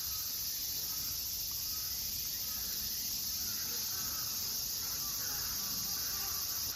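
A steady, high-pitched chorus of insects from the surrounding trees, with a few faint bird chirps now and then.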